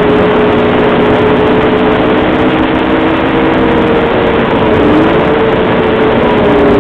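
Snowmobile engines running at speed, a loud steady drone over a constant rush of wind and track noise, as a second sled passes close alongside. The engine note rises briefly about five seconds in.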